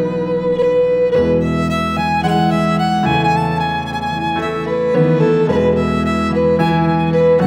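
Slow fiddle melody with long bowed notes, over held piano chords that change every couple of seconds.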